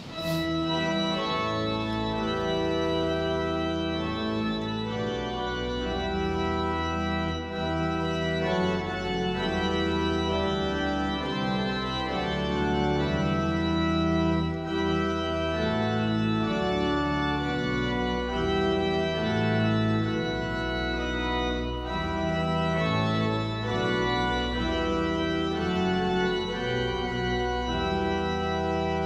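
Church pipe organ playing sustained chords as offertory music. It comes in abruptly at the start, and the chords change every second or two.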